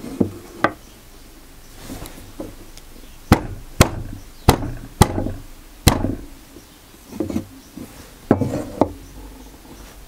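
Wooden router fence being knocked into alignment on a router table: about eight sharp wood knocks at uneven intervals, with quieter scraping and shifting of the wood between them.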